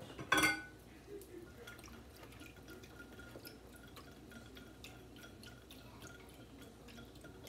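A small whisk stirring a cornstarch-and-water slurry in a glass bowl, its wires making many faint, quick light clinks against the glass. There is a brief louder knock just after the start.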